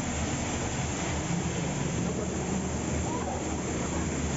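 Falling water pouring down in a steady, dense rush, heard from right behind the cascade's curtain of water.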